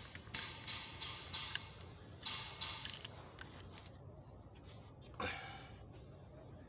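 Handling noise: cloth rustling against the phone and scattered light clicks as the phone is moved and set in place.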